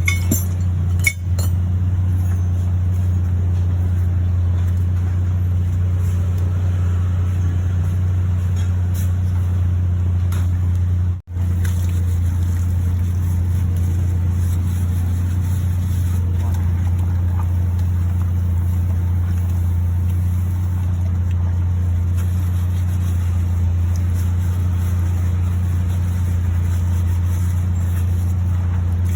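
A car engine running steadily as a low, even hum, with a brief dropout about eleven seconds in.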